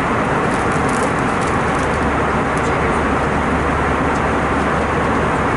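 Passenger jet cabin noise in flight: the steady, even rush of engines and airflow, unchanging in level, with a few faint light ticks.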